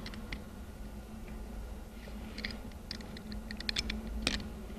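Light metallic clicks and clinks of steel stuffing-box parts being handled: a wiper's flat side being seated onto the coil retaining spring inside the housing. The clicks come in small clusters about halfway through and near the end, the loudest about four seconds in, over a faint steady hum.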